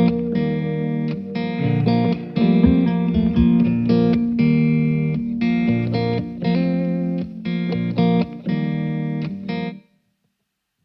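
Background music led by guitar, with plucked notes over a steady low line; it stops suddenly about a second before the end.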